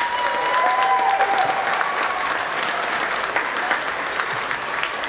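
Audience applauding steadily, easing off slowly. About a second in there is a long, high two-note whistle, the second note lower.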